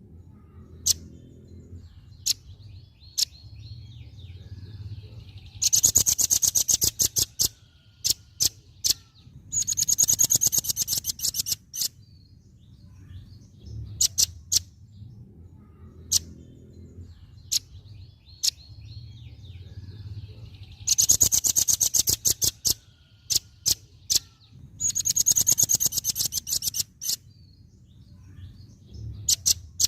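Velvet-fronted nuthatch (rambatan paruh merah) calling: single sharp, high chirps at intervals and four rapid, very high trills of about two seconds each. The same sequence of chirps and trills comes round again about halfway through, over a faint low hum.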